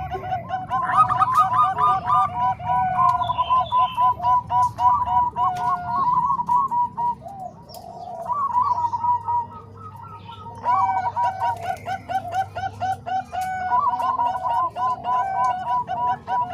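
Zebra doves (perkutut) singing their rapid, staccato cooing song, at least two birds overlapping at different pitches. The song drops to a quieter lull about halfway through, then picks up again.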